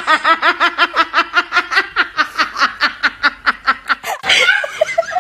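A person laughing in a high-pitched, rapid, rhythmic run of about six short 'ha' pulses a second that slows and fades after about four seconds, then a fresh burst of laughter near the end.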